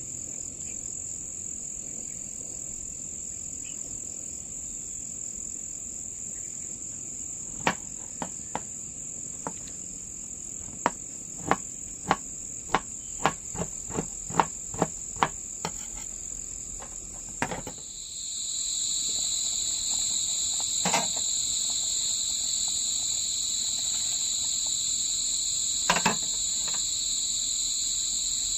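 Insects chirring in a steady high-pitched drone, with a second, lower insect drone joining about two-thirds of the way in. A run of about a dozen sharp knocks, one or two a second, comes in the middle, and two single knocks follow later.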